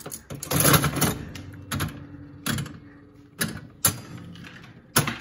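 Jennings Governor mechanical slot machine being played: a whirring rattle as the handle is pulled and the reels spin, then a series of sharp mechanical clunks as the reels stop one after another.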